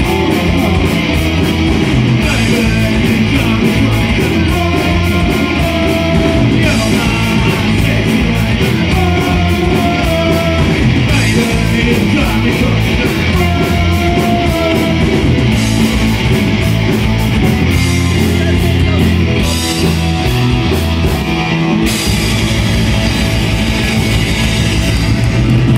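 Loud rock music with distorted electric guitar, a steady drum beat and singing.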